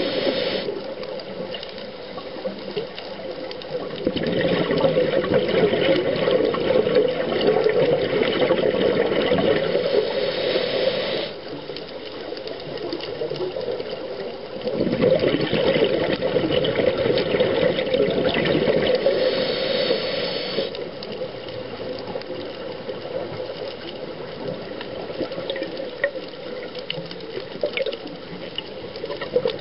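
Underwater scuba breathing heard through the camera housing: long rushing, bubbling exhalations from the diver's regulator, one starting about four seconds in and another about fifteen seconds in, with quieter spells between.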